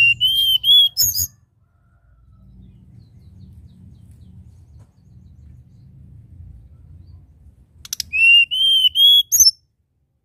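Hill blue flycatcher (tledekan gunung) singing two short phrases about eight seconds apart. Each is a run of three clear whistled notes at about the same pitch, ending in a few sharp high notes. A faint low rumble lies under the gaps.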